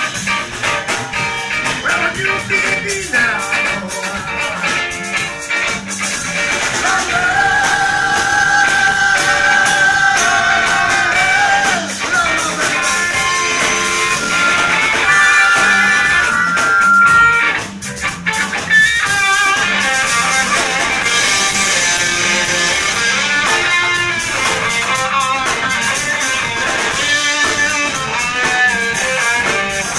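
Live rock band playing amplified: electric guitar, bass guitar and a Pearl drum kit. In the middle a harmonica played into the vocal microphone plays a solo of long held notes.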